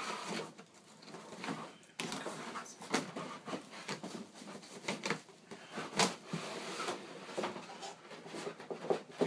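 Cardboard and packaging scraping and rustling, with several sharp knocks, as a laptop in its moulded pulp tray and plastic sleeve is slid out of its cardboard shipping box.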